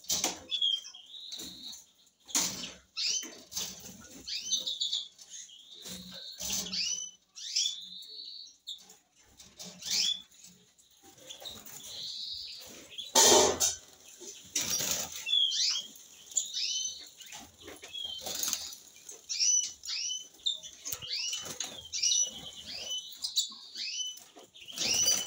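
Caged finches, European goldfinches among them, giving many short, sharp chirping calls in quick succession, with wings fluttering and small knocks of birds hopping and landing on the wire cages. The loudest knock comes about 13 seconds in.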